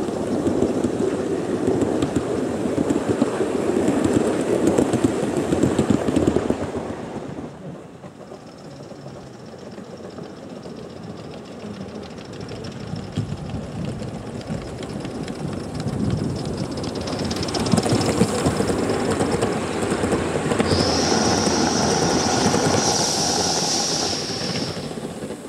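Gauge 1 model train running on garden track: wheels clattering over the rails as the coaches pass close, then fading away. It builds again as the BR Britannia-class locomotive draws near, with a steady high-pitched tone over the running for the last few seconds.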